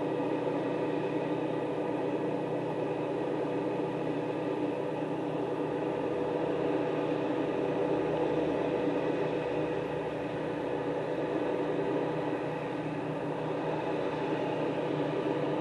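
A machine running steadily: a constant hum of several steady tones, with no change in speed and no cutting or impacts.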